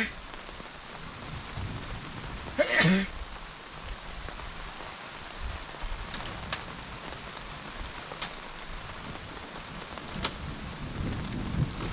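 Steady rain falling, with a few sharp drip taps. A brief human vocal sound, like a cough or throat clearing, comes about three seconds in.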